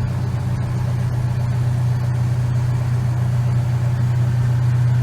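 An engine running steadily at a constant idle, a low even hum.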